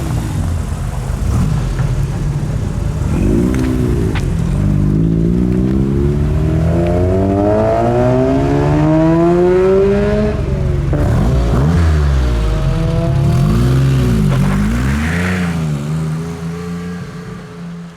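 A car engine revving: a quick blip, then a long steady climb in pitch that drops sharply about ten seconds in, like a gear change, followed by several more short rev blips. The sound fades out near the end.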